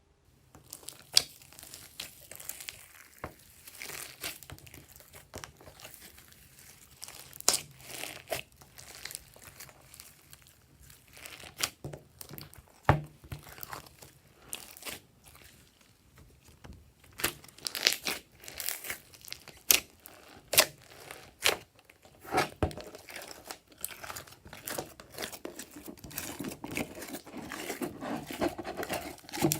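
Glossy slime being worked and mixed by hand, giving irregular sticky clicks and crackling pops, growing into a denser squelching near the end.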